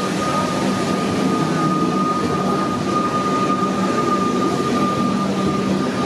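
Melbourne suburban electric train arriving at a station platform, its carriages rolling past close by, with a steady high whine over the running noise.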